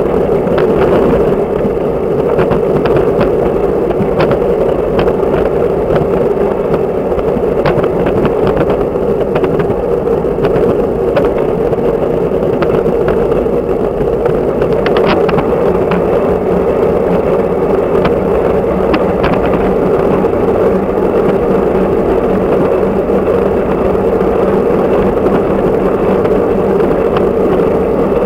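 Steady loud wind and tyre rumble from a camera mounted on a road bike rolling along an asphalt path, with scattered small ticks and rattles.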